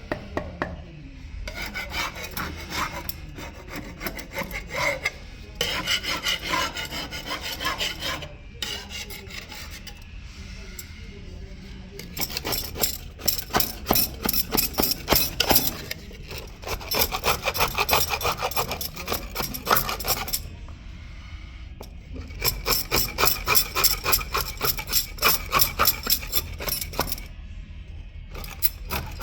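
Rapid back-and-forth scraping strokes on a marble stair, working old glue off the stone after a chemical stripper. The strokes come in several spells of a few seconds, with short pauses between them.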